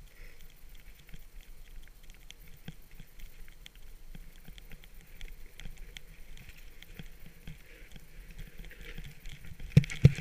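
Sliding down a groomed snow slope, heard from a helmet: a steady scraping hiss of snow with scattered small knocks and a low rumble. Near the end come a few loud thumps as the rider runs up into a snowbank.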